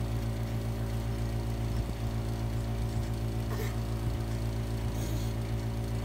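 Window air conditioner running, a steady machine hum that does not change, with a faint tick or two from the toy being handled.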